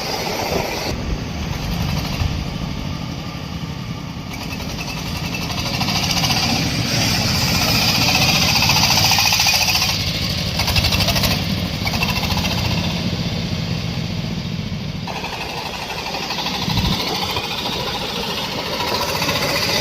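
Corn sheller for unhusked corn, driven by a 26 HP engine, running at work: a steady engine rumble under a dense, rapid rattling, louder for a few seconds around the middle.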